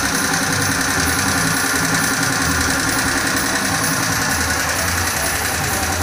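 Steady workshop machine noise from a running motor, with a low rapid pulsing under a constant hiss.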